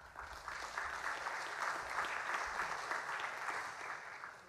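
Audience applauding, a dense patter of many hands clapping that starts up at once, holds steady and dies away near the end.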